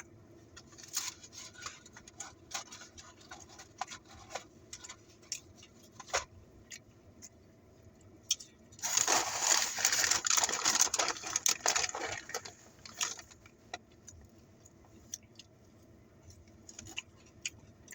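Food packaging being handled: scattered small clicks and rustles, then about nine seconds in a loud stretch of paper-and-foil crinkling that lasts some three and a half seconds.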